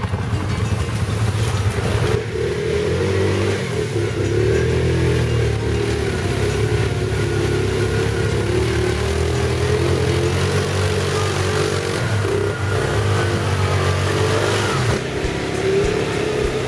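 Quad bike (ATV) engines running and revving as the quads ride through deep mud.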